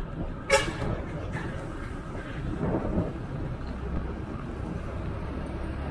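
Steady low rumble of wind and road traffic while riding on a highway. A short vehicle horn toot sounds about half a second in.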